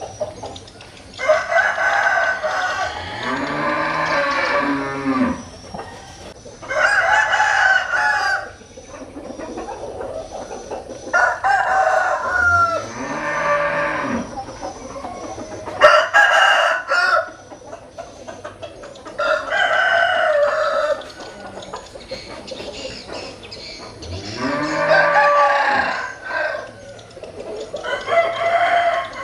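Roosters crowing again and again, about seven crows of one and a half to four seconds each, a few seconds apart. A lower call rises and falls under three of the crows.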